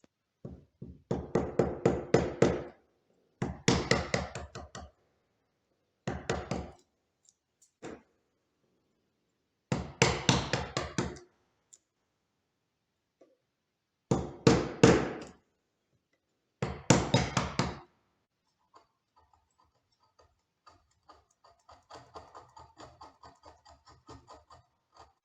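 Light, rapid tapping on wood in six bursts of about a second each, the strikes ringing with the wood's resonance, then fainter, quicker tapping near the end.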